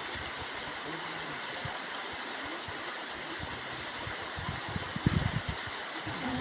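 Steady rush of flowing stream water, with a short cluster of low thumps about five seconds in.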